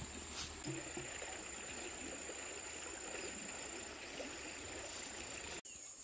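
Insects trilling steadily in one continuous high tone, with faint rustling underneath; the sound drops out for an instant near the end.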